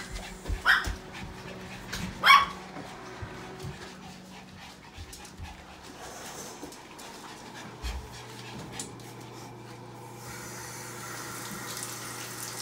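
Pomeranian panting, with a few short yaps in the first couple of seconds. About ten seconds in, a bathtub faucet starts running steadily.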